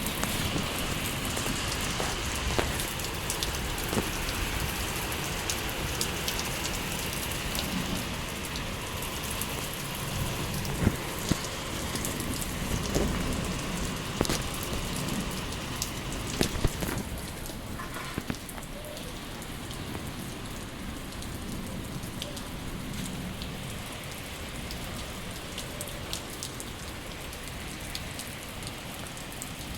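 Steady rain falling and pattering on hard surfaces, with scattered louder drips and splashes.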